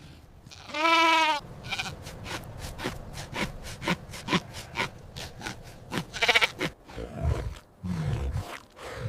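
Sheep bleating: a loud quavering bleat about a second in, a short one just after, and another near six seconds, over repeated light clicks. A low rumbling sound comes in near the end.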